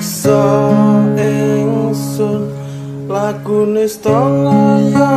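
Fingerstyle acoustic guitar playing a slow melody over sustained bass notes.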